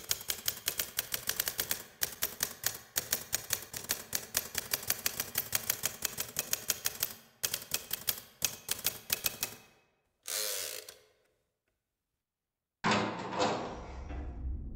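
Typewriter keys clacking in quick, uneven runs with two short pauses. About ten seconds in the typing stops and one longer sound fades out, and a low rumble begins near the end.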